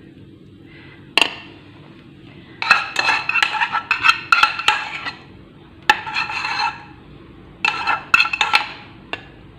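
Kitchen utensils and dishes clinking and scraping: a sharp click about a second in, then three short spells of metallic clatter with a ringing edge.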